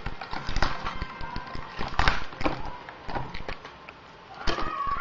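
Clicks, taps and crackling as the plastic and metal parts of a Fujitsu Siemens laptop's LCD screen assembly are handled and pulled apart by hand, with a sharper knock about two seconds in.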